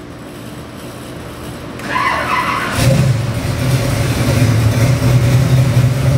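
Fuel-injected 427 small-block Chevy stroker V8 being started: the starter cranks briefly about two seconds in, and the engine catches just under a second later. It then runs at a steady, loud high first idle that has yet to settle down.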